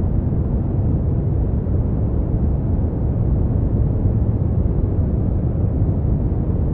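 Brown noise: a steady, deep rushing hiss with most of its weight in the low end and little above the mid treble, unchanging throughout.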